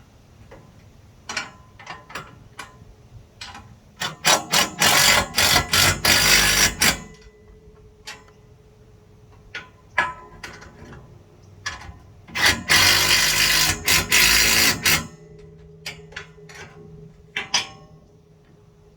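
Power impact gun running the jack mount's bolts down tight in two runs of about three seconds each, with short clicks and knocks of the tool and parts in between.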